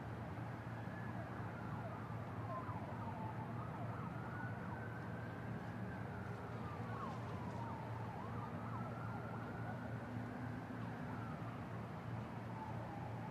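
An emergency-vehicle siren wailing, its pitch slowly rising and falling about once every five seconds, over a steady low hum of city traffic.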